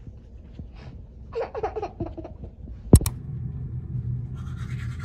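A few brief murmured voice sounds, then a sharp click about three seconds in, followed by a steady low hum. Near the end comes the rhythmic scratchy scrubbing of a toothbrush on teeth.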